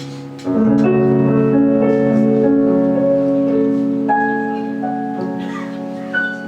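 A live band's instrumental ending, with keyboard prominent: a chord struck about half a second in and held, slowly fading, with a few higher notes added midway.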